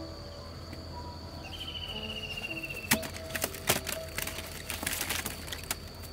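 A cluster of sharp cracks and snaps, like twigs or woody stems breaking, about three seconds in, the loudest two in its first second. Under them runs a steady high insect drone, and a short descending pulsed trill comes just before the cracks.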